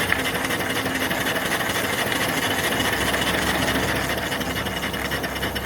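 Small 3–4 horsepower steam engine mounted on its boiler, running steadily with a fast even beat and steam hiss.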